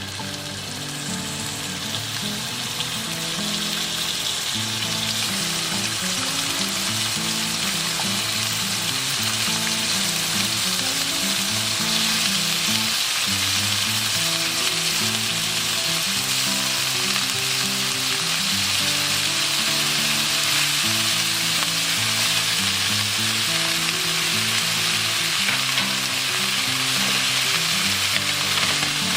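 Beef-wrapped root vegetable rolls sizzling as they fry in a pan, the sizzle swelling over the first few seconds and then holding steady.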